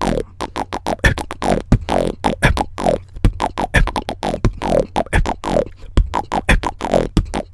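Human beatboxing: fast mouth percussion, sharp clicks and kick-like hits several times a second, woven with short pitched sounds that repeatedly slide down in pitch. The performer himself says he is not good with these sounds.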